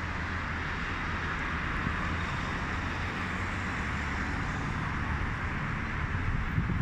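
Steady low engine rumble under an even traffic-like hiss, with no distinct events.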